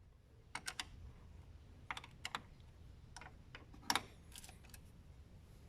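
Faint scattered metallic clicks and taps in small groups, a wrench working on a car battery terminal clamp's nut and bolt.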